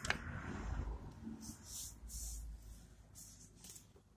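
Faint scraping and a click of a screwdriver loosening a set screw on the hook assembly of a Consew 206RB walking-foot industrial sewing machine, with a few short scrapes.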